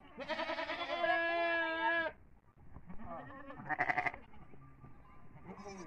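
Young goat kids bleating: one long bleat of about two seconds, a shorter one about four seconds in, and another starting near the end.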